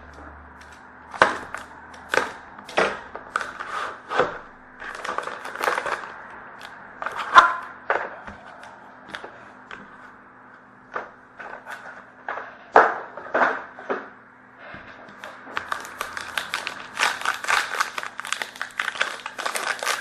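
Sealed box of trading cards being opened by hand: a series of sharp clicks and taps of cardboard and plastic, then, in the last few seconds, dense crinkling of plastic wrapping.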